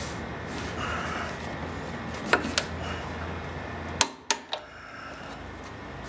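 Sharp metallic clicks of a torque wrench and 17 mm socket on a scooter's front axle nut as it is torqued to 40 foot-pounds and the wrench is taken off. The clicks come in two short clusters, one a little past two seconds in and a louder one about four seconds in, over a low steady hum that drops away after the second cluster.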